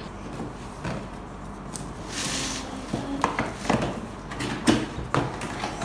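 A large cardboard toy box being handled: light knocks, taps and cardboard scraping, with a few sharper knocks in the second half.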